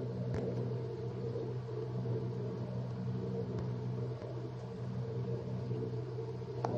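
Steady low background hum, with a faint click about half a second in and another near the end.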